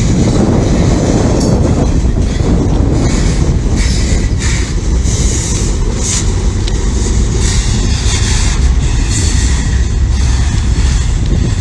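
A train passing close by: a steady, loud rumble of wheels running on the rails, with rail noise that flares up now and then.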